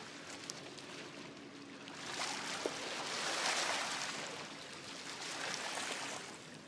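Small waves washing onto the shore: a rushing hiss that swells about two seconds in, peaks near the middle and eases off toward the end.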